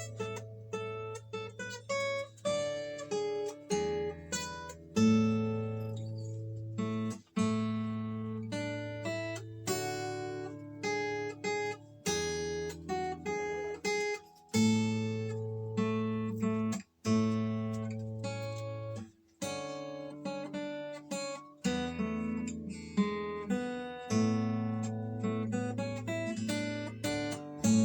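Yamaha steel-string acoustic guitar played solo: improvised strummed and plucked chords, each left to ring for a few seconds before the next, with a few brief breaks between them.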